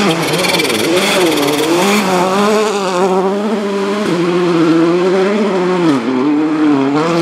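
Volkswagen Polo R WRC rally car's 1.6-litre turbocharged four-cylinder engine driven hard on loose gravel, revs climbing and falling repeatedly through gear changes and lifts. About six seconds in the revs drop sharply for a bend, then pick up again.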